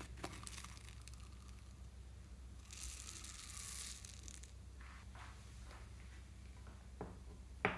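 Small foam beads pouring out of a plastic container onto slime, a soft hissing rustle that lasts about two seconds, with light plastic clicks of handling around it. A sharp click near the end is the loudest sound.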